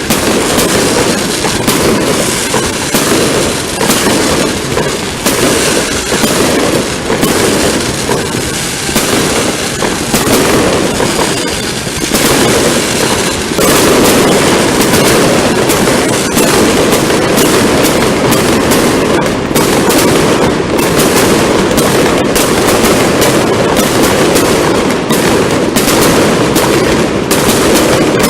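Fireworks display: a dense, continuous crackle of rapid bangs, growing denser and louder about 13 seconds in.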